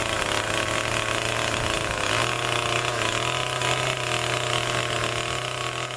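Chainsaw engine running steadily at an even pitch.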